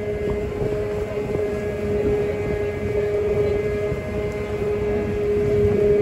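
The SS Moyie's engine running steadily under way: a constant droning hum with two held tones, over a rough low rumble of wind and water noise.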